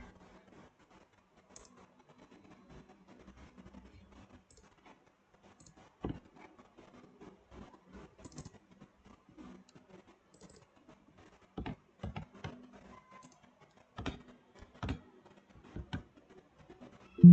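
Scattered clicks of a computer keyboard and mouse, irregular and a few at a time, over a faint low hum.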